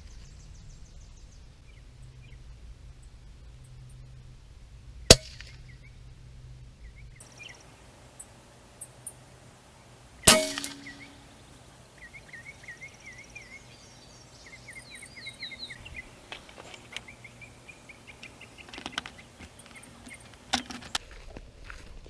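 Two sharp air rifle shots about five seconds apart, the second with a short ringing tail.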